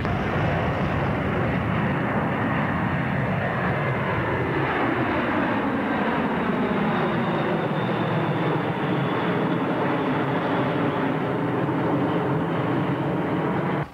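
B-52H Stratofortress's eight TF33 turbofan jet engines running at high power as the bomber lifts off and passes overhead: a loud, steady jet noise with faint tones that slowly fall in pitch.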